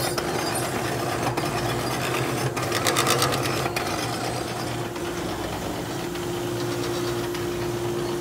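Vemag HP10C double-screw vacuum stuffer running empty with its hopper feed auger turning: a steady machine drone with a steady hum. A fast ticking rattle comes in about two and a half seconds in and fades after about four seconds.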